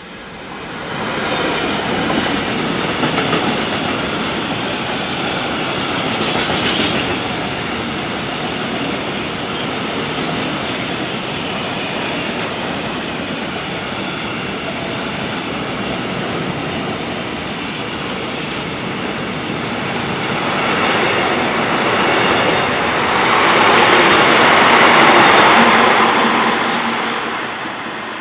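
Class 66 diesel freight locomotive, with its EMD two-stroke V12 running, passes at speed hauling a heavy freight train, followed by a long rake of covered and box wagons rolling by with clattering wheels on the rails. The noise comes up sharply about a second in and swells louder again near the end as the wagons pass.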